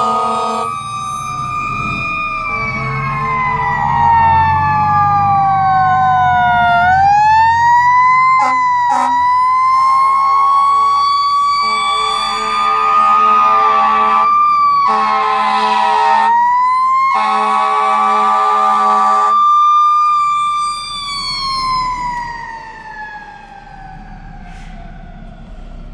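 Fire trucks' mechanical Federal Q siren wailing, rising and falling slowly and winding down over the last few seconds, with several long air horn blasts over it. Diesel engine rumble lies underneath during the first several seconds.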